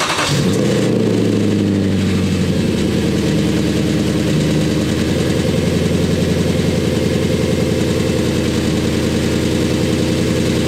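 Audi B7 RS4's 4.2-litre naturally aspirated V8 on a cold start, through the standard exhaust with its resonators removed. The start-up flare dies away in the first half-second, and the revs ease down over the next second or two into a steady idle.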